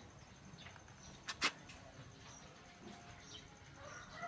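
Faint outdoor ambience with a few short bird chirps and a steady high thin whine, broken about a second and a half in by two sharp clicks close together.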